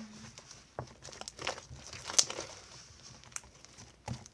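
Slime being squeezed and worked by hand, giving irregular small clicks and pops, the sharpest about two seconds in.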